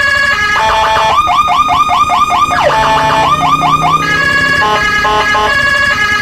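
Whelen 60-watt electronic siren switching between several tone patterns: steady tones, runs of rapid rising chirps and short sweeps. It cuts off right at the end.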